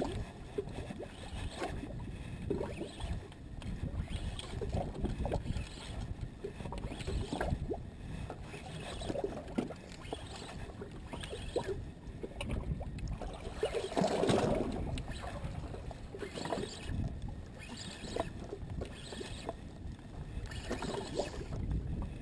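Water slapping and sloshing against the hull of a small boat at sea, with wind buffeting the microphone; a louder surge about fourteen seconds in.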